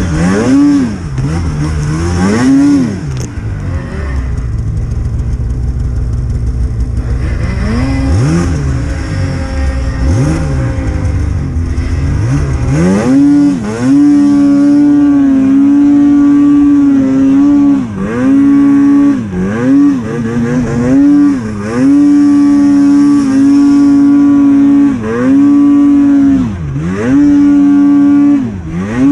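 Snowmobile engine revving, the throttle opened and eased off again and again. From about halfway in, it holds high revs for a second or two at a time, with quick drops between.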